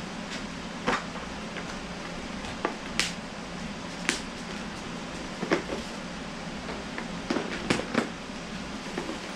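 Clear plastic tackle boxes clicking and knocking as they are handled and pulled out of a soft tackle bag: several sharp clicks scattered through, over a steady background hum.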